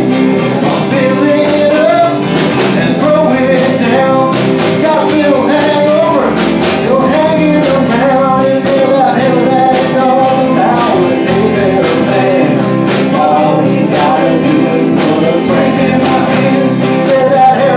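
A band playing a song: a singer over guitar and drums, with the drums and cymbals getting busier about four seconds in.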